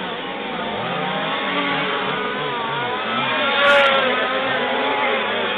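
Engines of several 1:5 scale RC race trucks revving up and down as they lap the track, their pitches overlapping. They get louder a little after halfway.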